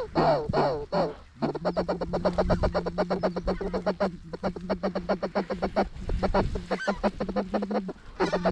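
Geese calling: a dense, rapid run of honks and clucks over a steady low drone, with short breaks about a second in and again about four seconds in.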